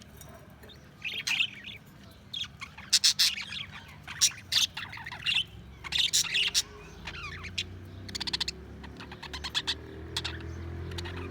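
Budgerigars chirping and warbling in short, quick bursts with brief pauses between them.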